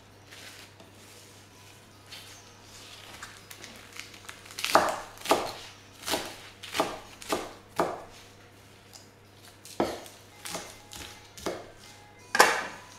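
Kitchen knife chopping wild herbs and salad greens on a wooden board: after a few quiet seconds, a run of crisp chops starts, about two a second, with the loudest strokes at the start of the run and near the end.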